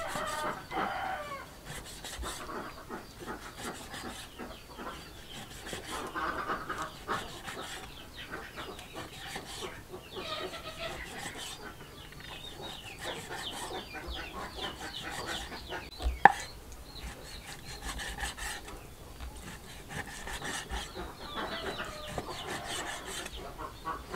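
Meat cleaver chopping raw pork belly on a wooden chopping board, a steady run of knocks with one much louder chop about two-thirds through. Chickens cluck several times in the background.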